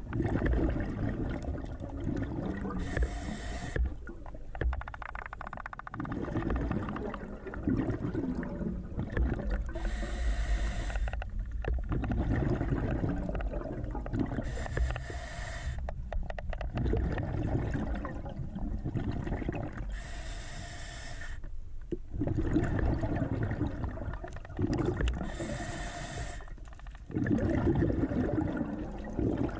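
Scuba diver breathing through a regulator underwater. Each breath is drawn in with a low rasp and followed by a short rush of exhaled bubbles, about every five seconds.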